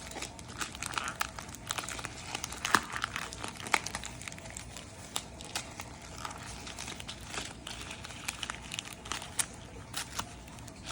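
Packaging being handled and unwrapped, crinkling and rustling with many irregular crackles throughout.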